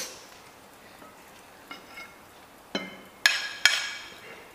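Metal spoons clinking and tapping against ceramic plates: a few faint taps, then three sharper ringing clinks in the last second and a half.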